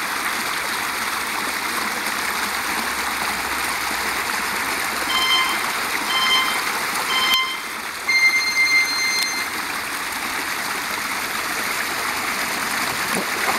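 Steady rushing of running water in a stream. Over it, a countdown-timer sound effect gives three short electronic beeps about a second apart, then one longer beep.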